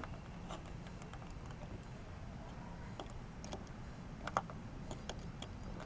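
Faint, scattered light clicks and ticks of small metal parts being handled: doorbell wire being wrapped around a terminal screw on a doorbell button, with the loudest click about four and a half seconds in.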